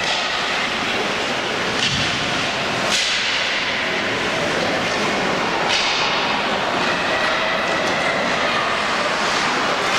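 Ice hockey play: a steady scraping hiss of skate blades on the ice, with sharp clacks of sticks and puck about two and three seconds in and again near six seconds.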